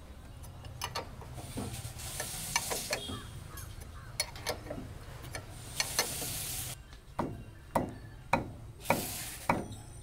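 Steel spanner clicking and clinking against the nuts and sprockets of a baler's roller drive as a bolt is worked, many short sharp clicks and knocks. Three spells of high hiss come in, about a second and a half, six and nine seconds in.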